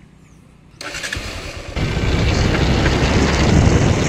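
Hero motorcycle engine starting about a second in, then running loud and steady as the bike rides along, with broad wind noise.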